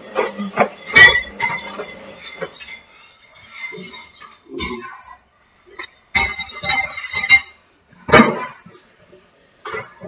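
Hoover Dynamic 1400 front-loading washing machine tumbling a small load: irregular clinks and knocks, with a sharp loud knock about a second in and another about eight seconds in.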